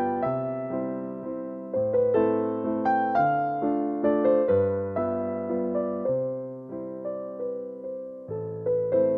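Background music: a gentle electric piano melody over slow, steady bass notes.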